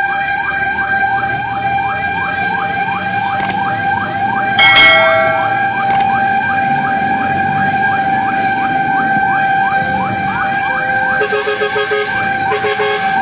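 Fire truck's electronic siren on a fast yelp, quick rising sweeps about three or four a second over a steady tone, heard from inside the cab. A loud horn blast cuts in about five seconds in, and a run of short horn toots comes near the end.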